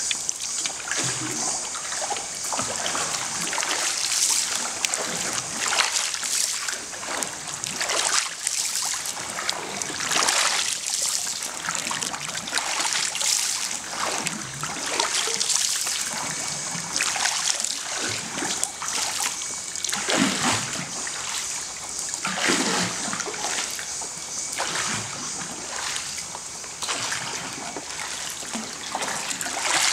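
Water splashing and sloshing as a bamboo pole is dipped and pushed through deep still water to move a bamboo raft, with a louder stroke every couple of seconds.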